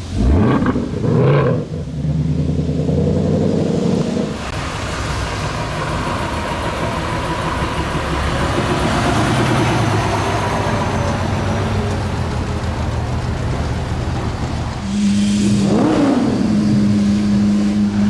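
Supercar engines revving and running: a sharp rev right at the start, engines and road noise passing through the middle, and a steady engine note with another quick rev blip near the end.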